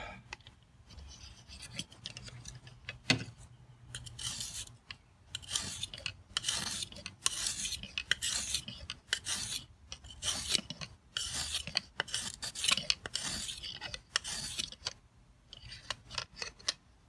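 Oiled fine sharpening stone on a guided rod stroked across a pocket knife's edge: a run of short rasping strokes, about one a second, after a single sharp click about three seconds in.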